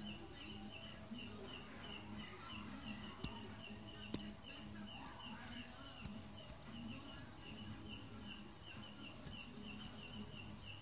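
Faint, even insect chirping, roughly three and a half short high chirps a second, with a few sharp clicks, the loudest about three and four seconds in.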